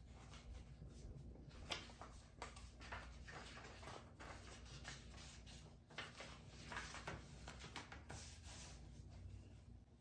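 Faint rustling of paper and light taps as the pages of a notebook are turned and handled, with a sharper tap just under two seconds in.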